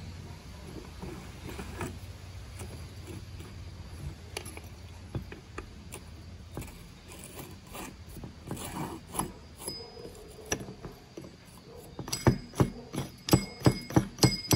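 Metal parts of a chainsaw's centrifugal clutch clicking and clattering as it is fitted and turned by hand. Near the end comes a run of sharp, evenly spaced ratchet-like clicks, about three a second.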